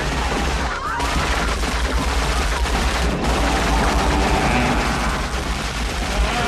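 Sustained heavy gunfire: many shots fired in rapid succession, forming a dense barrage.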